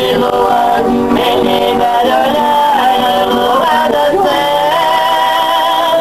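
Two men singing a Brazilian caipira song together, accompanied by a viola caipira and an acoustic guitar (violão).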